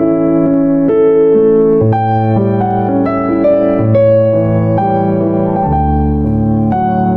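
Slow, gentle keyboard music: sustained piano or electric-piano chords and a melody, with notes changing every half second to a second.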